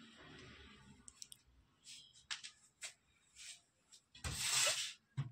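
Handling noises: soft rustling and small clicks, then things being moved about on a cupboard shelf, with a louder scraping rustle lasting about a second, about four seconds in.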